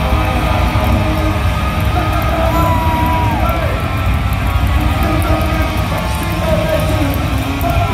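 Punk rock band playing live, heard from the audience: electric guitar, bass and drums at full volume, with the singer's voice holding a long note about three seconds in.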